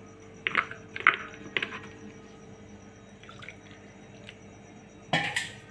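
Thick ground coconut chutney dripping from a mixer-grinder jar into a steel pot of chutney: a few short wet plops about half a second apart, then fainter drips. Near the end comes a louder, brief clatter.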